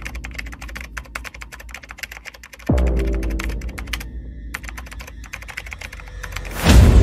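Computer-keyboard typing sound effect, fast clicks in quick succession with a brief pause about four seconds in, running with the typed-on captions. Under it a deep boom falling in pitch about two and a half seconds in, and a loud rushing swell near the end.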